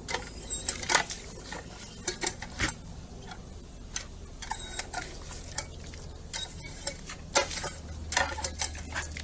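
Dog drinking from a paw-operated water fountain: irregular wet lapping clicks and splashes as it works the spout, some in quick clusters.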